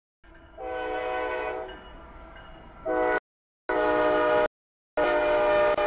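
Diesel freight locomotive's air horn sounding for the grade crossing: one long chord-like blast about half a second in, then three shorter blasts.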